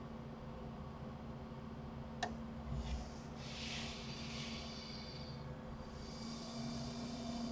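Faint steady room hum with one sharp click about two seconds in, then breathing close to the microphone, once around the middle and again near the end.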